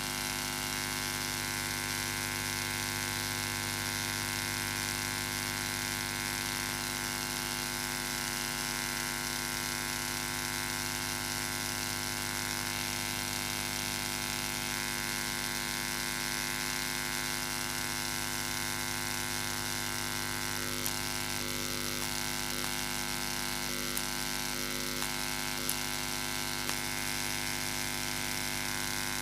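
Steady electrical hum and buzz with many overtones, the kind an amplified keyboard and PA rig puts out when it is switched on and idle. A few faint short tones and clicks come in about two-thirds of the way through.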